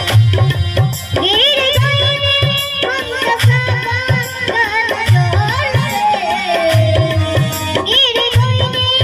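Bhojpuri song music: a steady hand-drum beat under a wavering, ornamented melody line.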